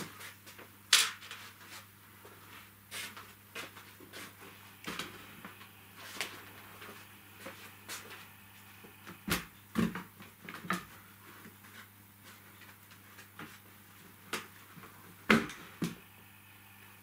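Irregular knocks and thuds from handling an upholstered sofa on its wooden trestles, over a low steady hum.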